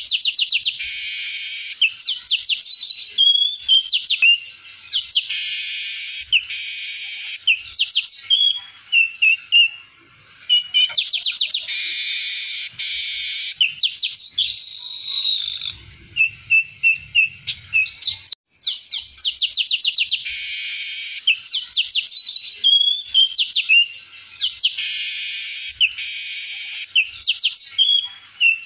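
Male streaked weaver singing: rapid runs of short chirps and clicks, broken about five times by longer buzzy, wheezy stretches, with a brief dropout about two-thirds through. The song is a practised, full one, mixed with learned phrases of other birds.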